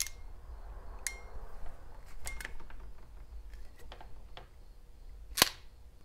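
Ratcheting MC4 crimping pliers closing on a wire ferrule, a series of sharp separate clicks, with the loudest single click near the end.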